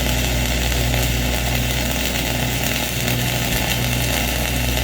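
Stick welding arc crackling steadily as an electrode is run vertically upward, over the constant low hum of a running engine.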